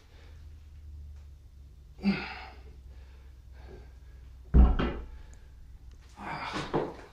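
Forceful breaths of a man exercising, about two seconds in and again near the end, with a loud low thud about four and a half seconds in, the loudest sound, as the weighted bar comes down on the floor. A steady low hum runs underneath.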